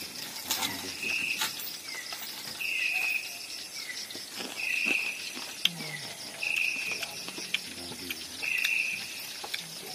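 Insects calling: a steady high pulsing trill, over which a buzzing call repeats about every two seconds, each starting with a short rising chirp. A few faint clicks sound here and there.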